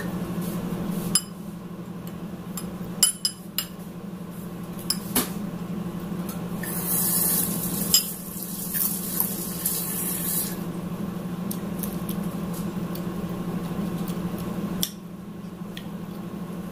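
Metal spoon clinking and scraping against a ceramic bowl as curry is stirred and scooped, with several sharp clinks, over a steady low hum. A stretch of hiss comes in around the middle.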